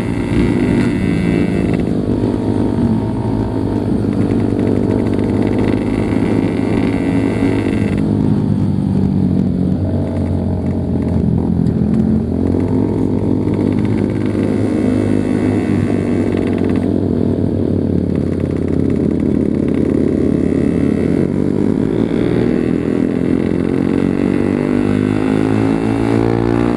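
Yamaha RX-King two-stroke single-cylinder motorcycle engine running under way, its pitch rising and falling with the throttle and climbing near the end.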